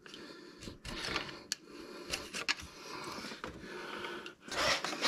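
A hand gasket scraper scrapes old gasket material off the engine's water pump mounting surface in short, irregular strokes with a few sharp clicks. Near the end the scraping becomes louder and more continuous.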